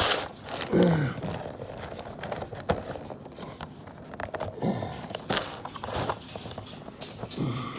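Cardboard packaging of a boxed toy track set being handled and picked at along its side, with scattered scrapes and clicks.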